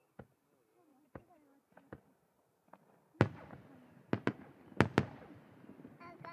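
Aerial firework shells bursting: a few faint sharp pops in the first seconds, then, about three seconds in, five loud sharp bangs in quick succession, each followed by a rolling rumble.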